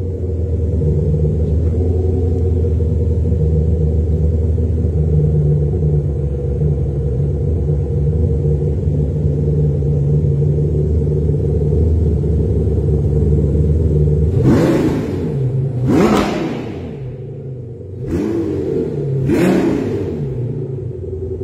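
Audi R8 V10 Spyder's 5.2-litre V10 through an ARMYTRIX titanium exhaust, idling steadily with a deep rumble. About fourteen seconds in it is blipped sharply four times, each rev rising and falling quickly.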